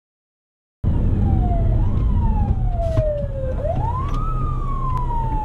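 After about a second of silence, an ambulance siren wails: each sweep rises quickly and falls away more slowly, repeating about every two seconds, over a steady low road rumble.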